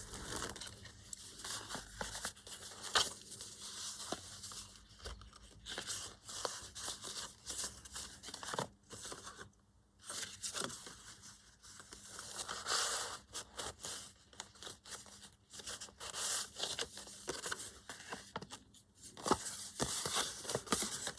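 Paper and card being handled on a craft table: irregular rustling and crinkling with small taps, pausing briefly about halfway.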